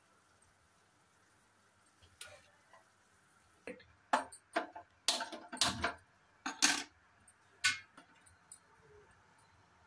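A run of sharp, irregular clicks and metallic clanks: a hand-held spark lighter at a gas stove burner and an aluminium pot knocking onto the stove's grate.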